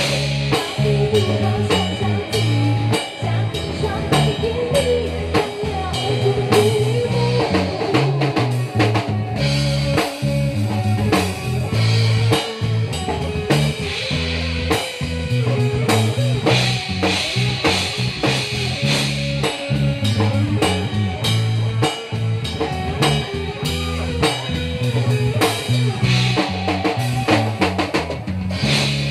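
A live band playing an instrumental passage: a drum kit keeps a steady beat under bass and electric guitar.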